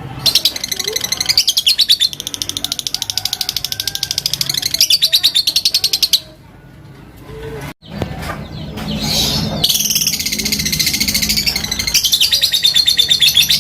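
Fighter lovebird giving a long ngekek: a fast, unbroken run of shrill chattering notes. It comes in two long bouts with a pause of about a second and a half around six seconds in. This is the rival-challenging call that keepers use to set other lovebirds singing.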